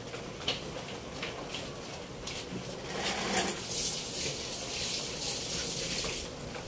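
Pot of beef rib nilaga broth simmering under a layer of cabbage and pechay leaves, with small scattered bubbling pops and a hiss that swells about halfway through and fades near the end.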